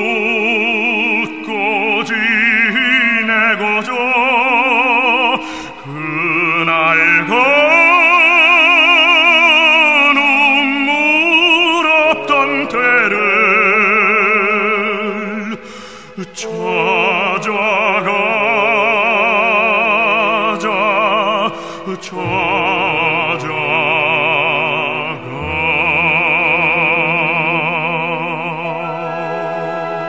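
Operatic baritone singing a Korean art song in long held notes with wide vibrato, over instrumental accompaniment. Near the end the voice drops out and the accompaniment holds steady chords.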